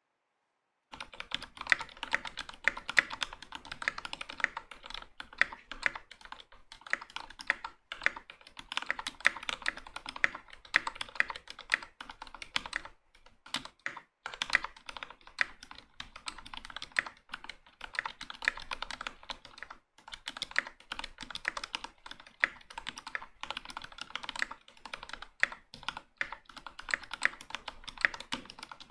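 Typing on a Velocifiretech KK75 75% mechanical keyboard (top-mount, aluminium half-plate) with Gateron Ink Black linear switches: a fast, irregular run of keystrokes that starts about a second in, with a few brief pauses.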